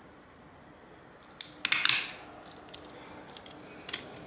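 Thin metal pry tool scraping and clicking against the phone's rear camera area as the old lens gasket is lifted. There is a short burst of scratchy clicks about a second and a half in, then scattered lighter ticks and a single click near the end.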